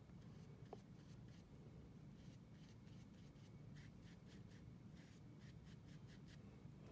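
Faint, irregular scratchy strokes of a bristle paintbrush dabbing and spreading paint on paper, over a low steady room hum.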